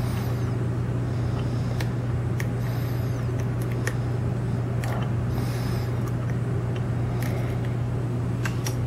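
Steady low background hum, with faint scattered ticks of a lock pick working the pin stacks of a brass lock cylinder.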